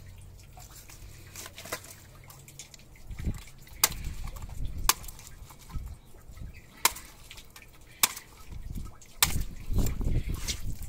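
A heavy cleaver chopping into a snapper's head on a concrete slab: a series of sharp chops, roughly one a second, starting about four seconds in, with dull thuds between them.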